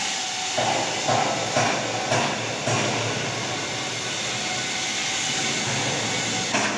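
Steady hissing noise of an aluminium shipyard workshop, with a short run of dull knocks about twice a second in the first few seconds.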